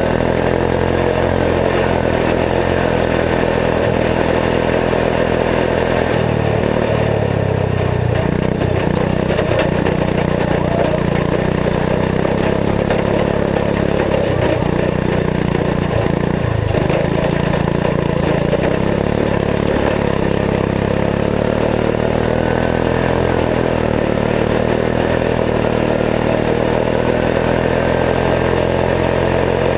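Turbocharged 14 hp single-cylinder Kohler engine with a K03s turbocharger on a Gilson garden tractor, running continuously while under way. Its note changes between about 6 and 17 seconds in, then settles steady again.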